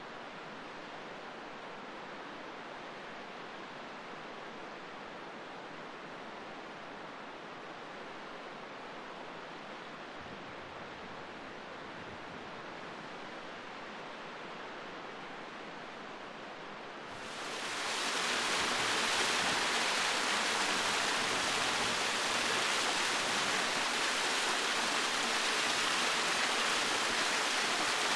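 Steady rushing of a mountain stream. A little past halfway it swells quickly into a louder, hissier rush and then holds steady.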